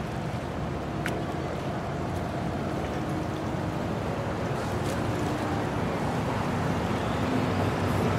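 Steady rushing wind-and-water ambience, slowly growing louder.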